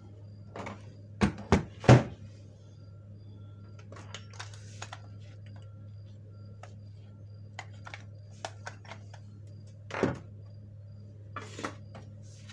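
Plastic parts of an opened molded-case circuit breaker being handled and set down on a bench. Three sharp knocks come quickly about a second in, then scattered light clicks, and another knock about ten seconds in, over a steady low hum.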